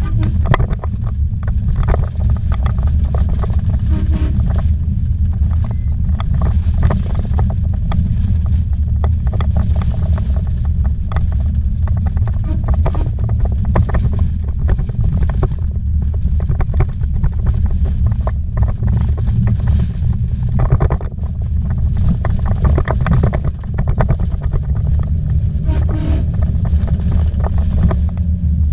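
Vehicle driving fast on a bumpy dirt road, heard from inside the cabin: a loud, steady low rumble from the tyres and running gear, with frequent knocks and rattles as it jolts over the ruts.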